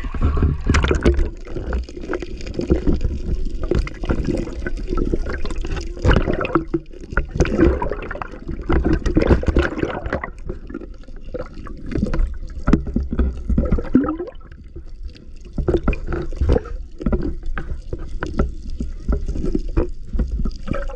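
River water sloshing and gurgling around a camera held underwater, muffled and bubbling, with many irregular knocks and thumps.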